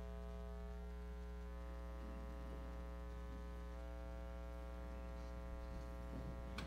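Steady electrical mains hum and buzz from the stage sound system, one unchanging drone with many even overtones.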